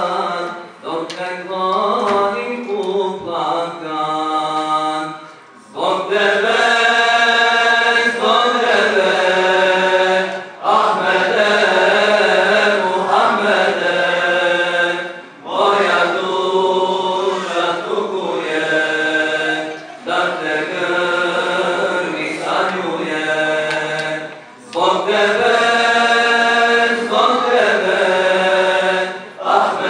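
Islamic devotional chant sung in long, drawn-out phrases of about four to five seconds each, with short breaks for breath between them.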